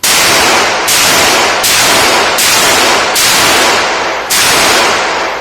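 Six handgun shots fired in quick succession, a little under a second apart, each very loud and ringing on until the next.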